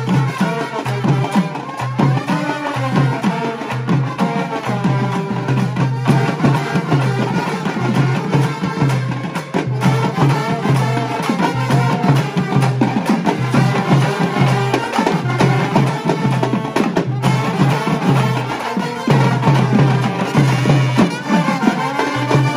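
Papare brass band playing a tune: trombones and other brass carrying the melody over a steady drum beat.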